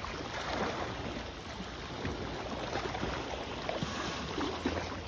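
Water splashing irregularly as a hooked catfish thrashes at the surface below a concrete jetty.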